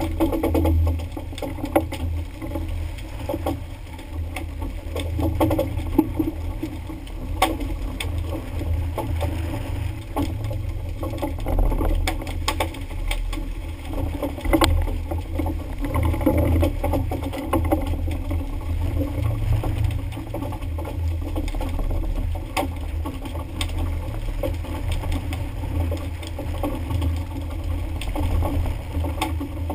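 Sound on board a fishing boat at sea: a steady, pulsing low rumble of engine and wind on the microphone, under a hiss of wind and water spray, with scattered knocks on the boat.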